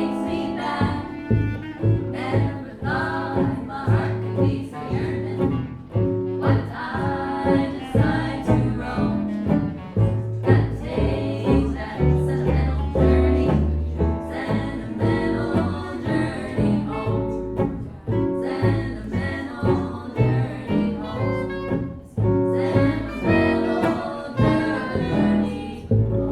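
Live jazz band playing, with bass notes prominent underneath.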